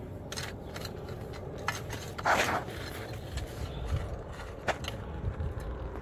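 Rubble and debris scraping and knocking as they are pulled about by hand, with a louder scrape a little over two seconds in.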